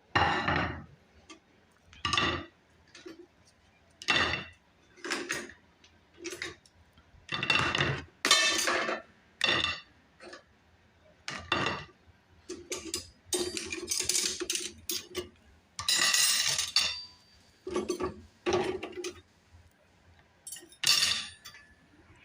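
Dishes and cutlery being unloaded from a dishwasher and put away: a string of separate clinks and clatters of plates, glasses and silverware, with short quiet gaps between.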